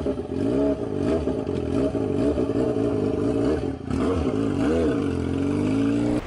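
A small engine revving, its pitch rising and falling in several blips between steadier stretches, then fading out at the end.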